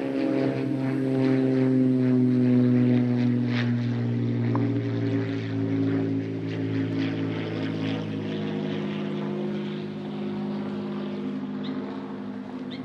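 A propeller airplane flying over: a steady engine drone whose pitch slowly falls as it passes, loudest two to three seconds in and then fading.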